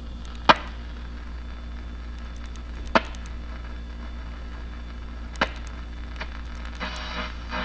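Static hiss from a 1935 General Electric M-51 tube radio's speaker while it is tuned between stations, over a steady low hum, with three sharp crackles spaced a couple of seconds apart.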